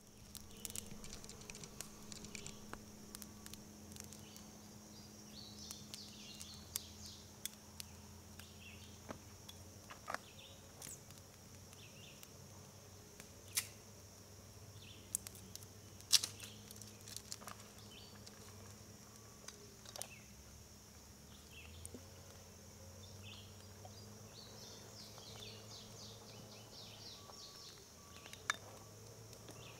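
Faint summer woodland ambience: a steady high drone of insects with scattered chirps, broken by a few sharp clicks.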